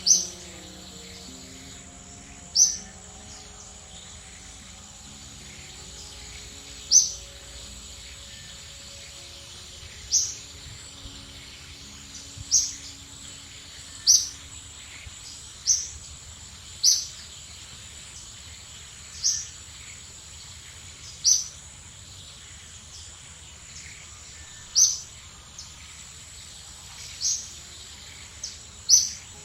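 A bird giving short, high chirps, about a dozen of them, one every two seconds or so, over a steady high-pitched insect drone.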